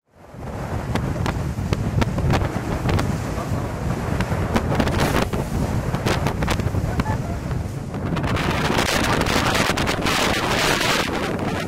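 Wind buffeting the microphone on the bow of a rigid inflatable boat under way through choppy open sea, a heavy low rumble with water rushing past and frequent sharp slaps and splashes as the hull meets the waves.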